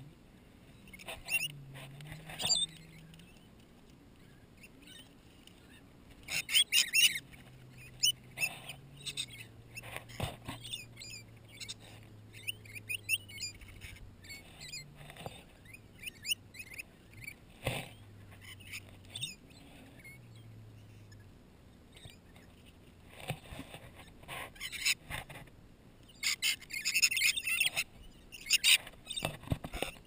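A flock of rainbow lorikeets feeding at close range: bursts of shrill chattering and screeching, loudest about six seconds in and again near the end, with scattered sharp clicks and scrapes of beaks and claws on the plate between the calls.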